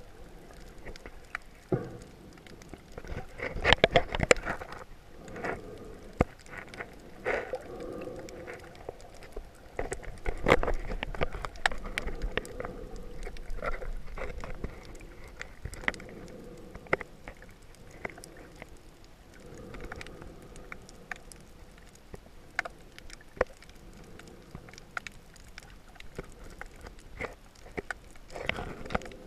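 Underwater sound picked up by a camera held below the surface while snorkeling: a steady water rush scattered with sharp clicks and crackle, swelling into louder surges of water movement about four seconds and ten seconds in.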